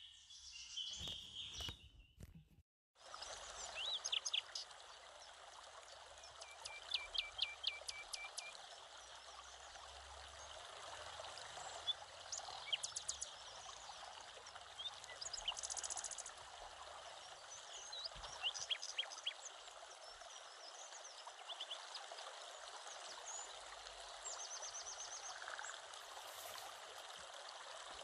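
Birds chirping over a steady rush of running water, a nature-ambience track. It starts about three seconds in, after a brief dropout.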